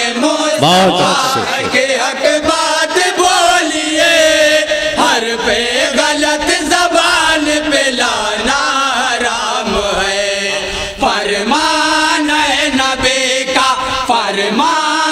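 A group of men singing a naat together into one microphone, several voices overlapping in a chanted melody with long held notes.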